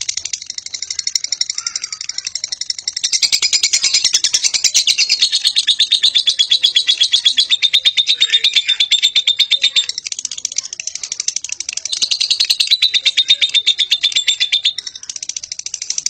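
Fischer's lovebird giving its long 'ngekek' chatter: a rapid, shrill run of notes without a break. It grows louder about three seconds in, dips briefly about ten seconds in, then swells again before easing near the end.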